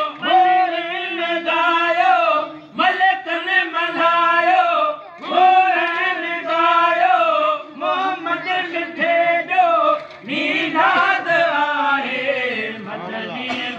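Men's voices chanting a Sindhi molood, a devotional song in praise of the Prophet, together and without instruments, in long drawn-out phrases with short breaks between them. The singing rises higher in pitch about ten seconds in.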